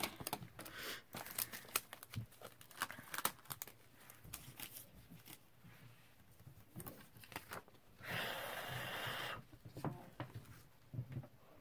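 Paper and craft supplies handled on a desk: scattered light clicks and rustles, then one steady paper rasp lasting about a second and a half, about eight seconds in.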